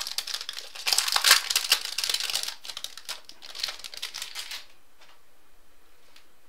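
Crinkling of plastic and foil card packaging being handled, in two spells of about a second and a half and one second, stopping a little before five seconds in.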